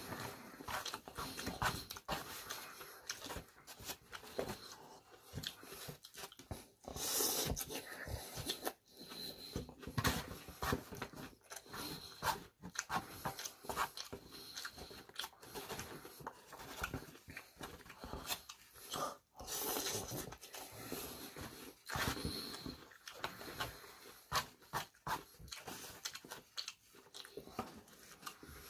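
Close-up eating sounds: chewing and crunching a vermicelli noodle salad with fresh lettuce, with irregular clicks and scrapes of a plastic fork in a foam takeout container.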